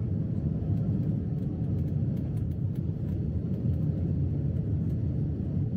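Jet airliner cabin noise in the climb just after takeoff: a steady low rumble of the engines and airflow.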